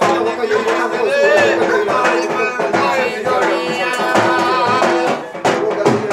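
Music with regular drum strokes under a wavering melody line.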